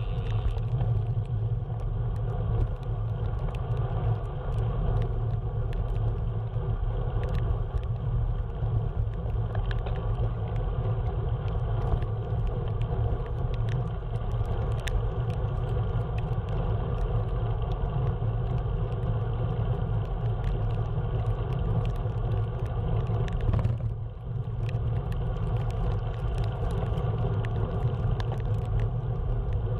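Steady low rumble of a moving road vehicle, with a brief dip about 24 seconds in.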